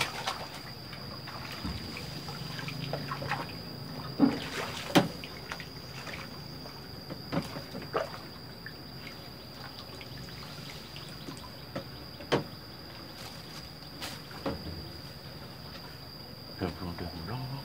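A steady, high insect drone with scattered knocks and small splashes and trickles of water as a fishing landing net is dipped and handled.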